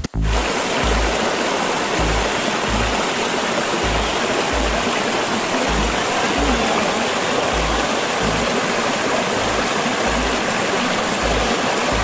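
Steady rush of stream water spilling over the rocks of a waterfall pool, with a steady low beat of background music underneath.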